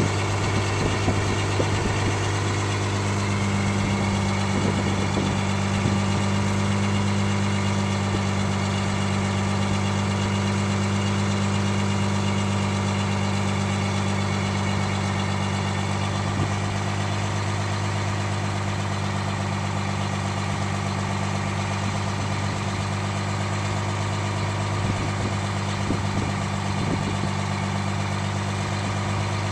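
Crown school bus engine idling steadily, a low even hum with no change in speed.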